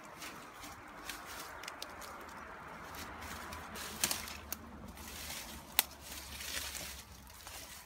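Footsteps on dry fallen leaves and twigs, with scattered sharp clicks and cracks; the loudest come about four and six seconds in.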